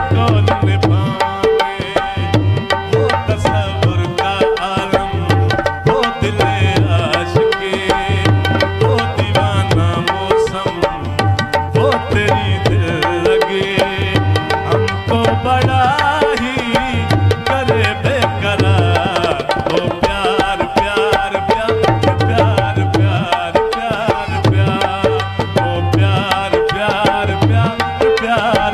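Instrumental interlude of live Punjabi folk music, without singing: a harmonium melody over a steady hand-drum rhythm with deep bass strokes.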